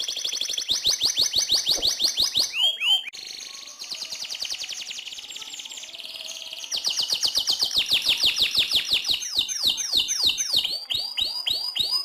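Domestic canary singing long rolling trills of rapid repeated high notes. The song eases off about three seconds in, comes back louder at about seven seconds, and ends in a string of slower swooping notes.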